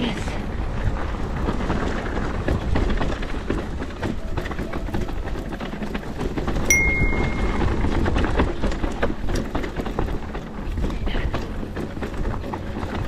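Mountain bike ridden down a rough enduro trail: a steady rumble of tyres over dirt and rock, with constant small knocks and rattles from the bike. A brief high tone sounds about halfway through.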